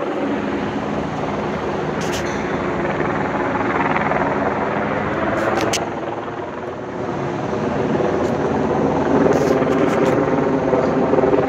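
Helicopter overhead, its rotor beating steadily. The sound dips briefly about six seconds in, then grows louder toward the end.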